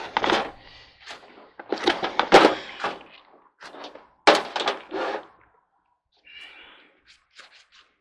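Thunks, knocks and clatter of a coffee maker and its parts being handled and set down on a pickup truck's hood, in three louder clusters over the first five seconds, then a few faint clicks.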